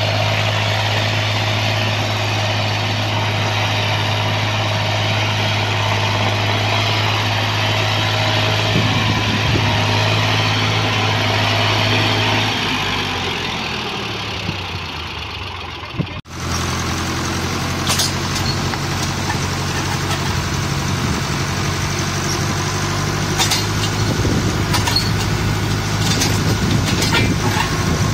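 Tractor diesel engine running steadily while working a ploughed field; its note drops and fades a little past the middle. There is then an abrupt cut to another tractor engine running steadily, with a few sharp clicks.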